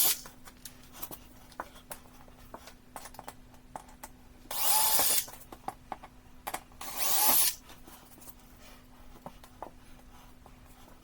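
Power drill with a wood bit boring small holes through laminate flooring at the board joints: two short bursts a couple of seconds apart, each spinning up with a rising whine. Light clicks in between.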